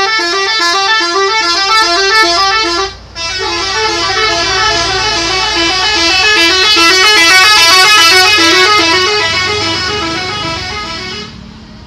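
Bus 'telolet' musical horn playing a loud, rapid warbling tune of quickly alternating notes. It breaks off briefly about three seconds in, then plays on for about eight more seconds before stopping, with a low engine rumble underneath.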